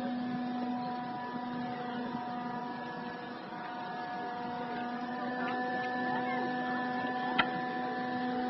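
A steady machine hum, one low pitch with overtones, holding even throughout, with a single sharp click about seven seconds in.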